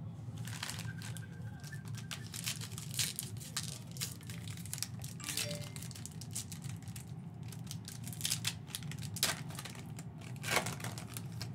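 Plastic trading card pack wrappers crinkling and tearing as basketball card packs are handled and ripped open, a dense irregular crackle throughout.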